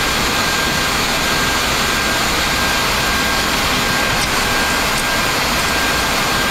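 Steady flight-deck noise of a Boeing 737 MAX in the climb: an even rush of airflow and jet-engine noise with a faint steady high whine.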